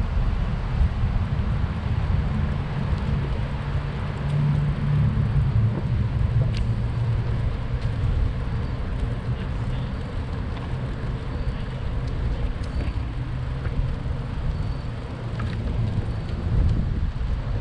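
Wind buffeting the microphone of a camera on a moving bicycle: a steady low rumble, with a couple of faint clicks.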